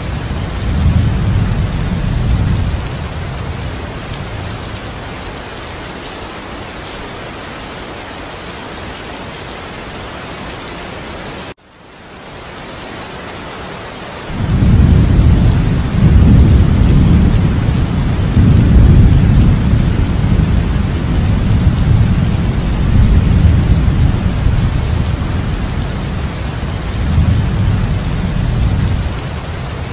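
Heavy rain hissing steadily, with rolling thunder: a short rumble at the start, then a long, loud rumble rolling on through most of the second half. A little over a third of the way in, the sound cuts out suddenly and fades back in over a few seconds.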